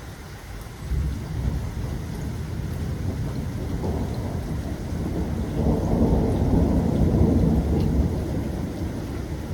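Steady rain with a long roll of thunder. The thunder comes in suddenly about a second in, grows to its loudest past the middle, then eases a little near the end.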